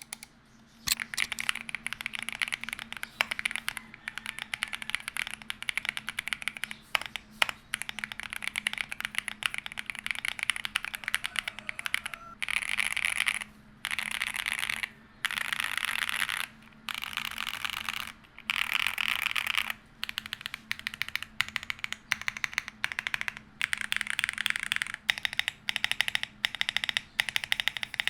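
Fast typing on a Varmilo VA80 mechanical keyboard: quick runs of key clicks in bursts of a second or two, with short pauses between.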